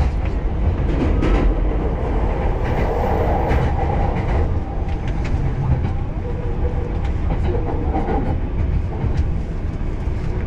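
JR Ueno-Tokyo Line commuter train running, heard from inside the carriage: a steady low rumble with scattered clicks of the wheels over the rails.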